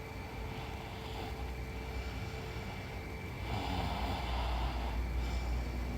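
A sleeping woman breathing through her sleep: a faint breath about half a second in, then a louder snoring breath about three and a half seconds in that lasts over a second, over a steady low rumble.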